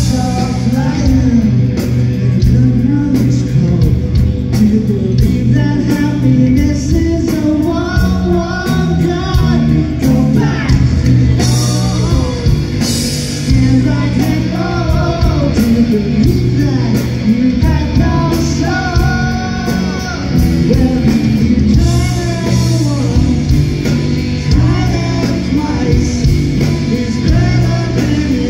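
Live rock band playing: a male lead vocal sings over electric guitar and a full drum kit.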